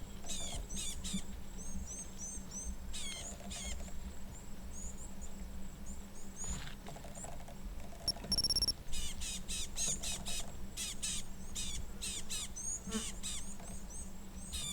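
Rapid high-pitched chirps and squeaks from small animals, coming in quick runs, over a steady low hum.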